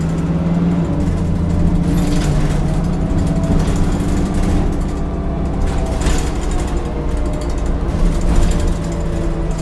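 Heuliez GX 337 city bus driving between stops, heard inside the cabin: the engine and ZF automatic gearbox give a steady drone, with a whine that rises gently in pitch a couple of times as the bus gathers speed. Short rattles come through now and then.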